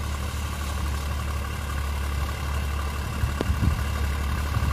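Deutz-Fahr tractor's diesel engine running steadily with a deep, even drone, with a few brief knocks about three and a half seconds in.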